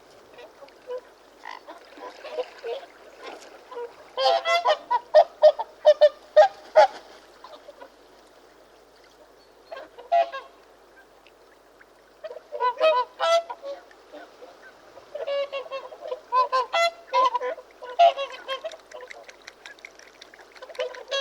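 Swans calling in bouts of rapid repeated calls separated by short pauses, the loudest run coming a few seconds in.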